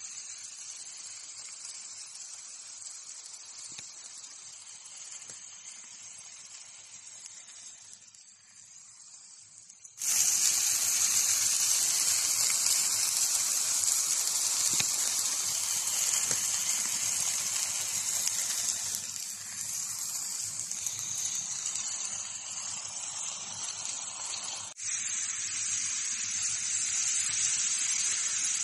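Burger patties sizzling on a griddle, a steady frying hiss that suddenly gets much louder about a third of the way in.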